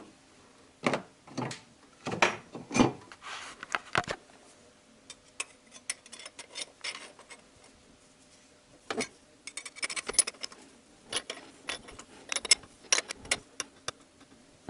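Metal spark plug wrench clinking and knocking as a spark plug, threaded into a repair insert, is tightened into the aluminium cylinder head. The clicks come in irregular clusters, a few louder knocks early on and a quick run of small clicks and rattles in the later part.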